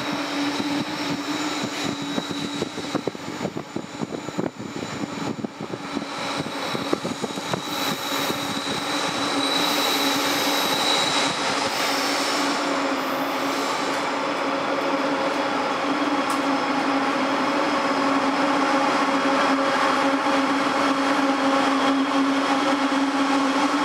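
Freight train led by diesel locomotives, hauling autorack cars, approaching and passing close by. A steady engine drone grows louder about ten seconds in as the locomotives come alongside, and the rolling rumble of the train then holds.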